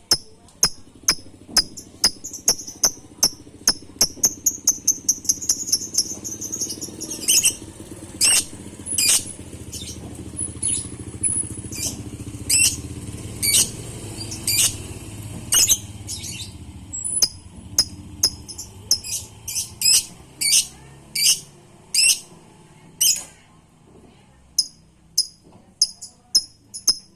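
Lovebird calling: a run of short, sharp high-pitched chirps, about one to three a second, breaking into rapid trilled chatter near the start and again near the end, over a low steady background hum.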